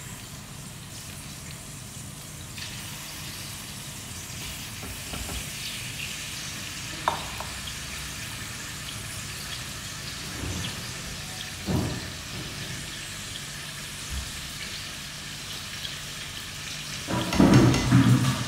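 Marinated soya chaap pieces sizzling and crackling as they shallow-fry in hot oil in a kadai, with a couple of knocks along the way and a louder clatter near the end.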